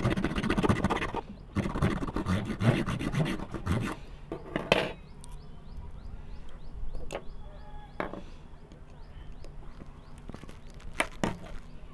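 Rapid back-and-forth rasping of a blade sawing into the metal casing of a cylindrical lithium-ion cell from a laptop battery. It pauses briefly about a second in and stops about five seconds in. Then a few light metal clicks and scrapes follow as a pointed tool works at the cut end.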